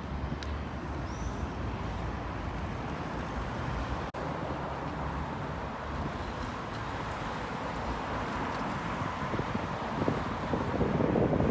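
Street ambience of traffic going by, a steady rumbling noise with wind on the microphone, growing louder near the end.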